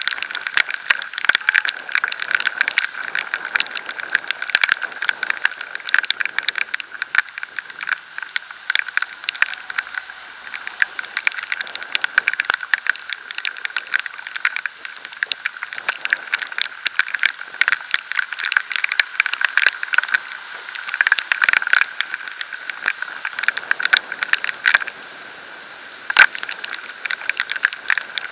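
Raindrops and road spray striking the camera at speed: a dense, irregular stream of sharp ticks and cracks over a steady hiss.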